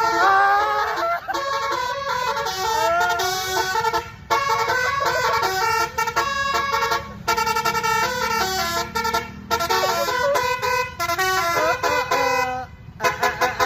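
Bus's Basuri V3 'telolet' multi-tone musical horn playing a tune: loud held horn notes stepping from pitch to pitch in a melody, broken by several brief pauses, over a steady low rumble.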